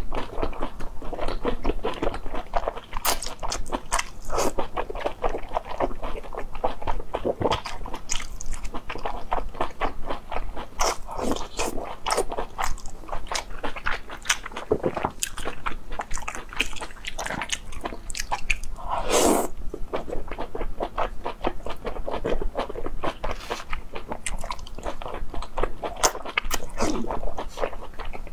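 Close-miked mouth sounds of eating spicy braised intestines: continuous wet chewing and biting with rapid sticky clicks, broken by a few longer slurps as strands are sucked in, the loudest about two-thirds of the way through.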